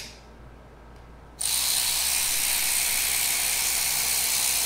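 An ACDelco ARW1209 12-volt cordless 3/8-inch ratchet runs unloaded at full trigger, turning about 180 RPM. It comes on suddenly about a second and a half in, after a short click, and runs as a steady high-pitched whir.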